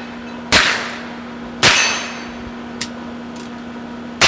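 Heritage Rough Rider .22 rimfire single-action revolver firing three sharp shots. The first two come about a second apart, and a third comes near the end after a pause with two faint clicks. Each shot rings briefly.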